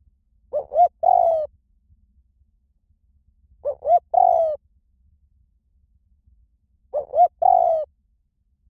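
Spotted dove cooing: three calls about three seconds apart, each made of two short rising notes followed by a longer, slightly falling coo.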